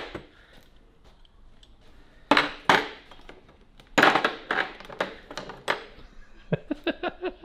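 Metal hand tools and a tube bender clinking and clattering against a diamond-plate steel table while a steel brake line is bent by hand. There is a sharp click at the start, then louder clatters about two and a half seconds in and again around four to six seconds in.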